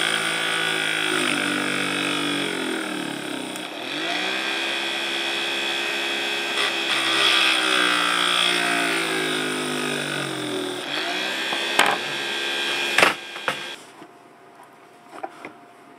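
Small DC fan motor running off a bench power supply at about 1.3 volts, its hum dropping in pitch twice as the motor is put in a bind and loaded, drawing more current, then picking back up. It cuts off with a click a couple of seconds before the end.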